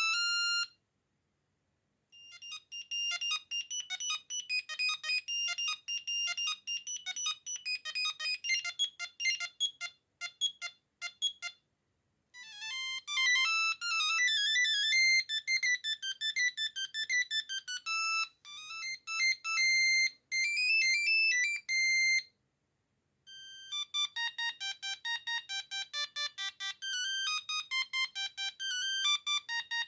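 Siemens A36 mobile phone playing its built-in monophonic ringtone melodies in turn: the end of one tune, then three more beeping tunes, each separated by a second or so of silence, the first made of quick short notes.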